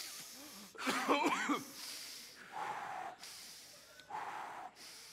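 A stage actor's theatrical gasping for breath in mock horror: a strained vocal cry with wavering pitch about a second in, then a run of hoarse, wheezing breaths of about half a second each.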